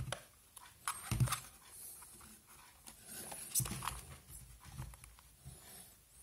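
Hands handling a packaging tray while prying a small remote out of its slot: scattered soft knocks, scrapes and faint squeaks. The firmest knocks come about a second in and again past three seconds.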